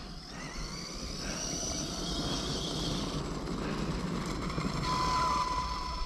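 1/5-scale Arrma Outcast RC truck's electric brushless motor whining at full speed on a dirt road, with tyre and gravel noise. It grows louder about five seconds in as the truck comes back toward the camera.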